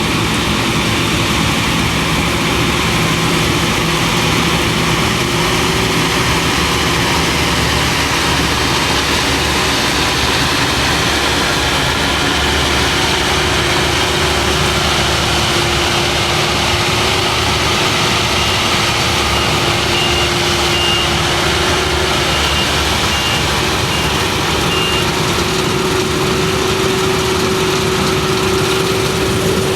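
Claas Lexion 480 combine harvester working through wheat: a steady loud engine and threshing drone with a held whine. A short run of high beeps comes about two-thirds of the way through.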